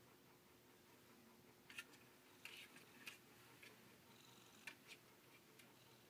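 A handful of faint ticks, mostly in the middle, from a cat's claws and horn-growth paw pads stepping on a hard surface, over near silence.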